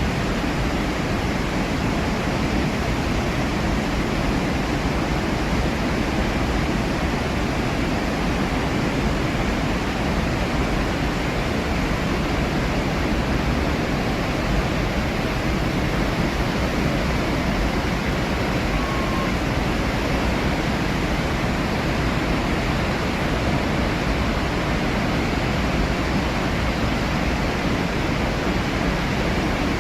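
Steady, unbroken rush of falling water from the Iguazu Falls, full and deep.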